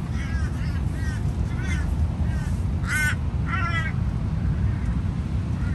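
Bird calls: a quick run of short rising-and-falling calls, then two louder, harsher calls about three seconds in, over a steady low rumble.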